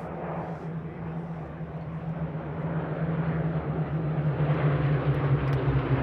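Rolls-Royce Merlin V12 piston engine of a Hawker Hurricane fighter in a display pass, a steady drone that grows louder as the aircraft approaches and drops slightly in pitch near the end.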